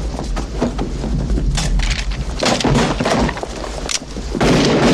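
Crashing sound effects of glass and wood breaking, several sharp hits one after another over a steady hip-hop beat.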